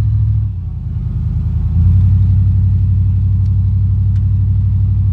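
Vehicle engine running with a low, steady hum. Its sound dips about half a second in, then picks back up, a little louder, about two seconds in.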